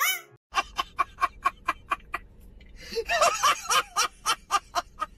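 A man's rapid, high-pitched staccato laugh, a fast run of short hoots about seven a second that sounds almost like a turkey gobbling, with a brief lull near the middle. A low steady hum lies under it. A different man gives a short laugh right at the start.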